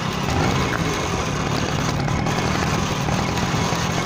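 Suzuki Max 100 motorcycle's two-stroke single-cylinder engine running steadily as the bike is ridden over a dirt track, heard from on the bike.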